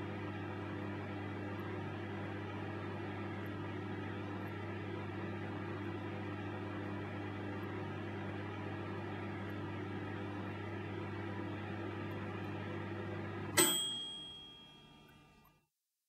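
Daewoo microwave oven running with a steady hum. About 13 seconds in, the hum cuts off and its dial timer's bell dings once, the ring fading over about two seconds, which signals the end of the cooking cycle.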